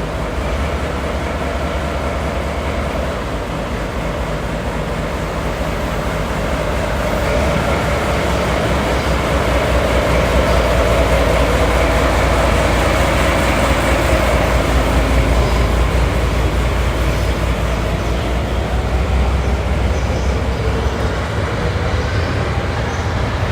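Class DE10 diesel-hydraulic locomotive pulling away, its diesel engine running under load with a steady low rumble that grows louder about seven seconds in and stays up until near the end.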